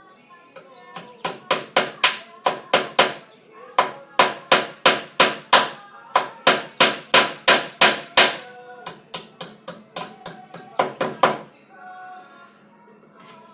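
Hammer blows, about four a second, in several runs with short pauses over some ten seconds, as parts of a home-built bird aviary are nailed together. Caged birds chirp faintly before and after the hammering.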